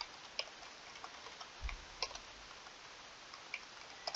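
Sparse computer-keyboard keystrokes, a handful of separate clicks spaced irregularly up to a second or so apart, over a faint steady hiss, with one soft low thump near the middle.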